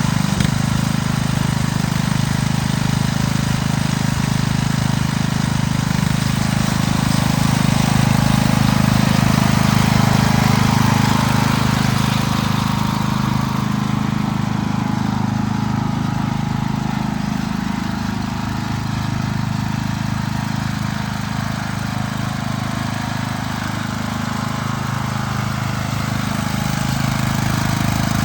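Riding lawn mower's engine running steadily, with its level and pitch shifting a little partway through.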